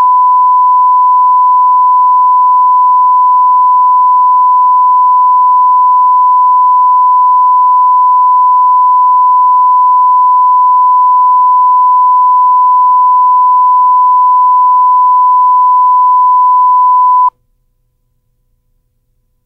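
Steady 1 kHz reference tone of the kind played with broadcast colour bars. It holds one unchanging pitch and cuts off suddenly about seventeen seconds in.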